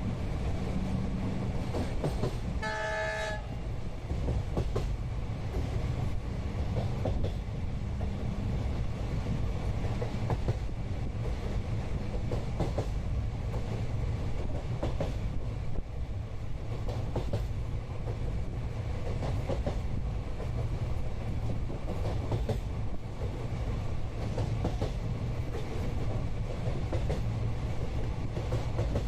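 Inside a moving Indian passenger train: steady rumble of the coach with the clickety-clack of wheels over rail joints. A train horn sounds once, briefly, about three seconds in.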